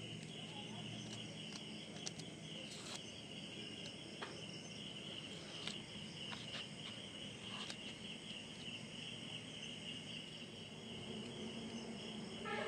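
Night insects chirring steadily in one high, even band, with a few soft clicks from dry onion skin being peeled by hand.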